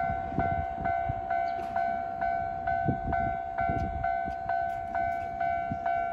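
Japanese level-crossing warning bell ringing steadily, a little over two dings a second. Beneath it, a Keikyu 600 series train passes, its wheels thudding irregularly over the rail joints.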